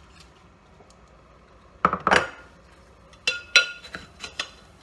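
Metal measuring spoon clattering against a container while seasoning powder is scooped. There is a short scraping clatter about two seconds in, then four or five sharp clinks that ring briefly.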